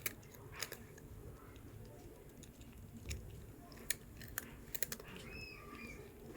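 A cat crunching and chewing a piece of murukku, a crisp fried snack, with a handful of sharp crunches scattered through steady chewing.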